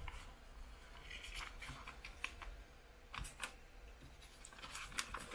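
A stiff black card cover being lifted off a trading-card presentation box. Scattered light clicks, taps and short scrapes of card being handled.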